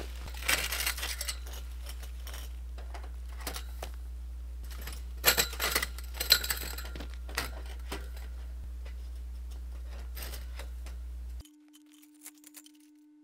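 Metal frame poles of a portable garage clinking and knocking against each other and the frame's fittings as they are handled and pushed into place, in scattered clusters over a steady low hum. Near the end the hum cuts off suddenly, leaving only a faint steady tone.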